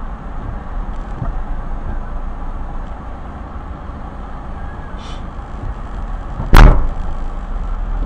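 Low steady rumble of a car's engine and road noise inside the cabin at a crawl in traffic, with one loud sharp thump about six and a half seconds in.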